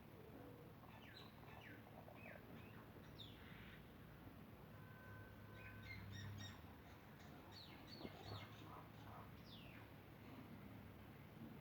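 Faint birds chirping in the background: clusters of short, quick, downward-sweeping chirps, over a low steady hum of room tone.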